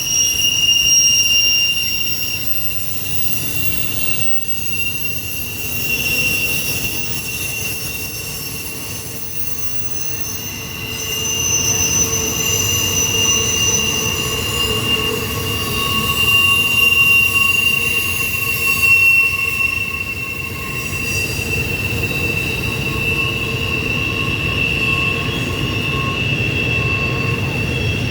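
An intermodal freight train's wheels squealing as they grind around a sharp curve: a steady high-pitched squeal, with fainter higher and lower squeal tones coming and going, over the low rumble of the rolling cars.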